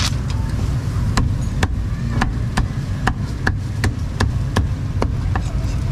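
Cleaver chopping on a chopping block in steady, even strokes, about two a second, over a low street rumble.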